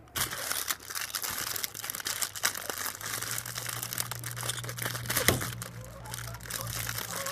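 Clear plastic bag around a plastic snack tray crinkling and crackling as it is pulled open by hand, with dense irregular crackles throughout.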